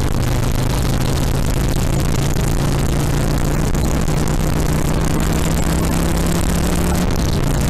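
2007 Harley-Davidson Sportster XL1200R's 1200 cc air-cooled V-twin running steadily, with a rushing noise over it; the engine note drops a little near the end.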